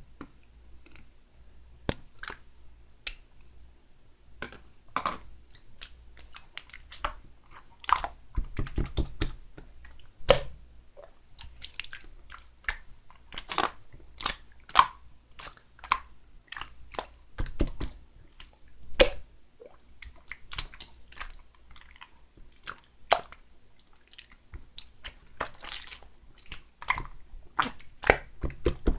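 Two-layer slime being squished and poked by hand, making many irregular sticky clicks and pops, some in quick flurries.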